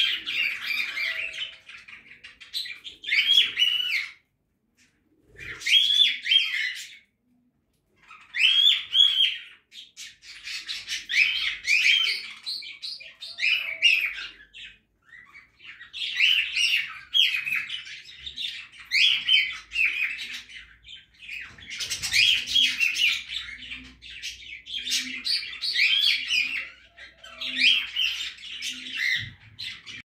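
A flock of budgerigars chattering and warbling in overlapping bursts of short squawks and trills, stopping twice for about a second within the first eight seconds.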